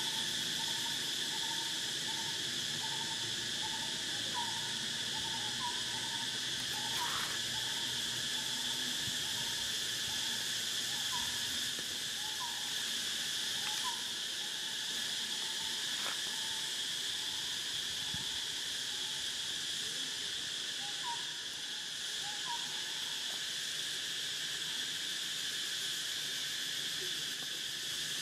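Steady, high-pitched drone of insects, with a run of short chirps repeating about once a second through the first half and a few more near the end.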